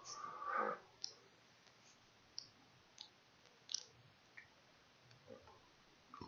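Faint computer mouse clicks, several sharp clicks spaced roughly a second apart, with a brief rustling noise in the first second.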